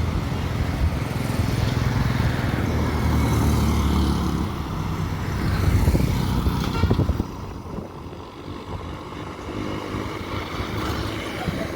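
Engine of a motor vehicle running close by on the street, a steady low drone that grows louder to about six seconds in, then drops away sharply about seven seconds in, leaving quieter street noise.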